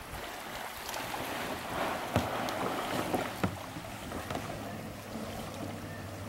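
Canoe under way: paddle strokes swishing through the river water, with two sharp knocks about two and three and a half seconds in.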